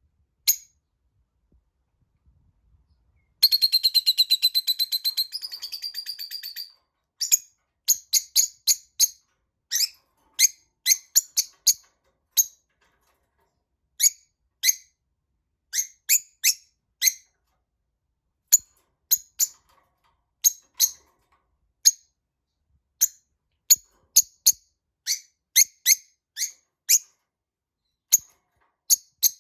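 Lovebirds chirping. A rapid chattering trill lasting about three seconds comes a few seconds in, followed by sharp, high, short chirps, singly and in quick pairs and clusters, at irregular intervals.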